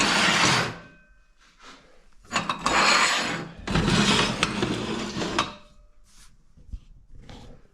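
Steel pieces and a welding angle jig being slid and handled on a steel welding table: several rough scraping sounds, the two longest in the middle, then lighter clinks and rubs.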